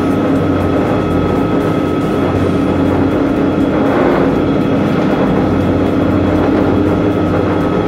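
A steady machine drone, a constant hum that holds the same pitch throughout.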